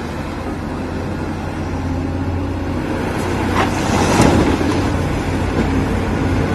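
Heavy motor vehicle engine running steadily, with a rumbling noise that swells to its loudest about four seconds in.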